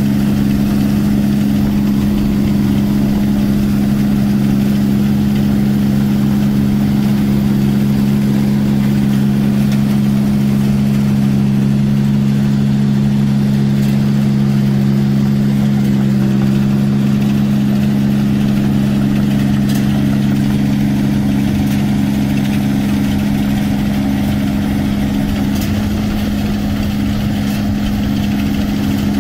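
8060 rice combine harvester running steadily as it cuts through the paddy, its engine and machinery a constant low drone.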